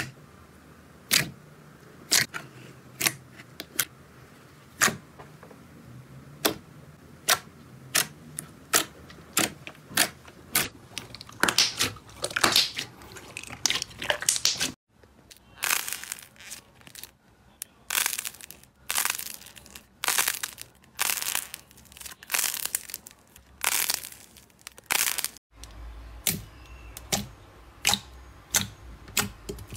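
Slime being pressed, poked and kneaded by hand, with sharp pops and crackles of trapped air squeezed out. The pops come about once a second at first, then as longer crackling squelches, then as smaller clicks.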